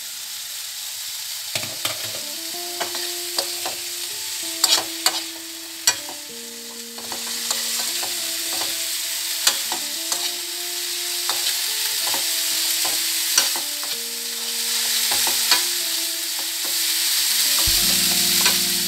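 Potato, carrot and broccoli strips sizzling as they fry in a nonstick pan, stirred with a spoon that clicks and scrapes against the pan now and then. The sizzling gets louder from about a third of the way in.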